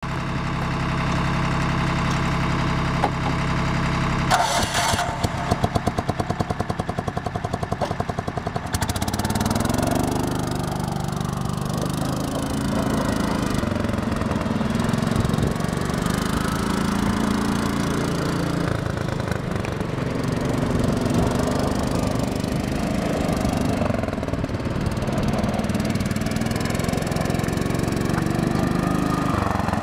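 John Deere AMT 600 utility vehicle's engine running. It is steady at idle for about four seconds, then changes abruptly to a rapid pulsing. From about nine seconds on its pitch rises and falls as the vehicle drives around.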